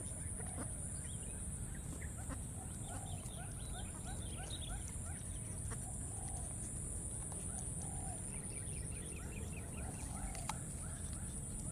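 Outdoor ambience of a steady high-pitched insect drone under birds calling: rapid runs of short chirps, and a lower call repeating about every second and a half. One sharp click near the end.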